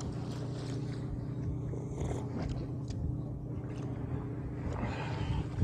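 Fishing boat's engine running with a steady low hum, with a few faint knocks over it.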